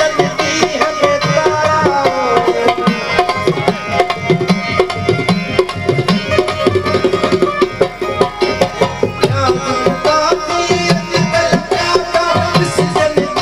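Harmonium and hand drums playing an instrumental passage of a live Sindhi folk song, the drums keeping a fast, steady rhythm under the harmonium's held notes and melody.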